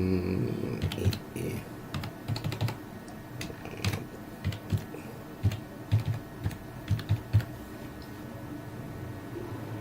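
Typing on a computer keyboard: irregular keystrokes, some quick runs and some single taps, stopping about seven and a half seconds in.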